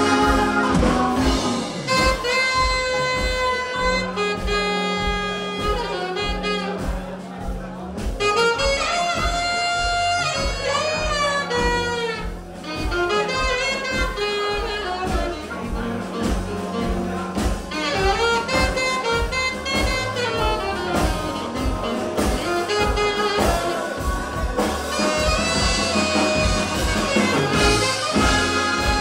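Live jazz band playing an instrumental passage: a saxophone carries the melody over brass, double bass, archtop electric guitar and a steady beat.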